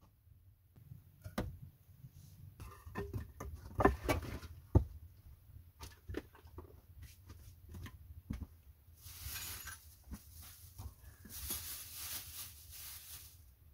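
Wooden knocks and clatter as boards, logs and a hatchet are handled on a chopping stump, loudest about four seconds in, followed by two stretches of rasping noise near the end.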